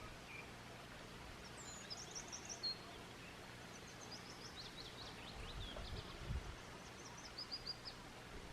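Small songbird singing faintly: quick runs of short, high, thin notes, once about two seconds in and again in the second half, over quiet outdoor background.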